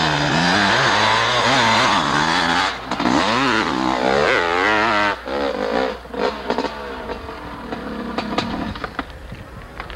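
A dirt bike's engine revving hard as it climbs a steep sandy hill, its pitch rising and falling. About five seconds in, the engine sound drops off sharply as the bike loses its climb and stops on the face, leaving quieter scattered clatter.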